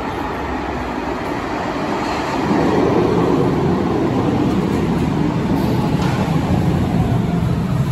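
Cologne KVB light-rail train arriving in an underground station, its wheels rumbling on the rails. It grows louder about two and a half seconds in as the cars pull alongside the platform.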